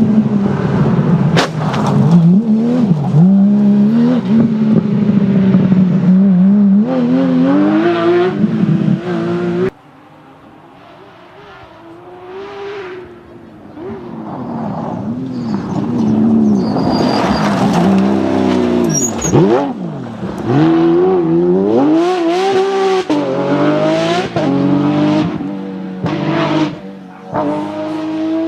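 Porsche 911 GT3's naturally aspirated flat-six engine revving hard, its pitch climbing and dropping through gear changes. About ten seconds in the sound cuts abruptly to a quieter stretch, where the car is heard approaching, sweeping past with a falling pitch, then revving high again.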